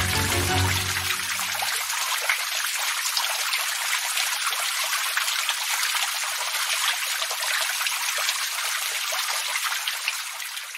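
The Oya River in flood, rushing under a bridge: a steady hiss of fast-moving water that fades near the end. Background music dies away in the first two seconds.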